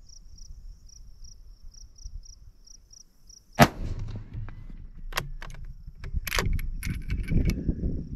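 A single shot from a .270 Winchester bolt-action rifle, a Winchester Model 70 firing a stiff handload of a 150-grain Hornady SST bullet, about three and a half seconds in. It is followed by a run of short metallic clicks and handling noise as the bolt is worked and the next cartridge is reached for. Before the shot a high chirping repeats a few times a second.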